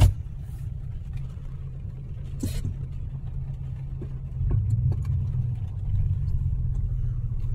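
Pickup truck's engine running, heard from inside the cab, with a sharp click at the start and a few light ticks. The engine gets louder about halfway through as the truck pulls away.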